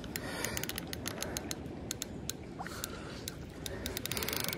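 Fishing reel clicking while a hooked carp is played: irregular ticks that quicken into a fast run of clicks about four seconds in, over steady low background noise.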